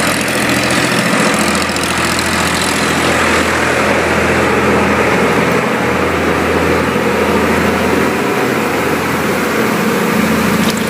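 A motor running steadily with a low hum, in a tyre repair shop.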